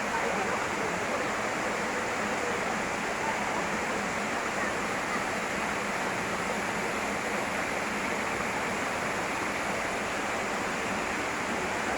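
Waterfall water falling and splashing, a steady, unbroken rush.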